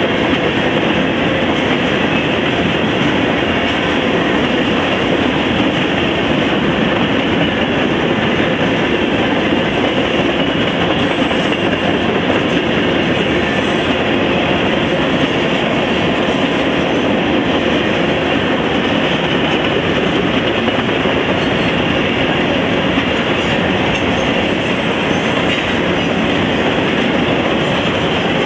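CSX manifest freight train's covered hopper cars rolling past, a steady heavy noise of steel wheels on rail. Faint high wheel squeals come and go from about nine seconds in.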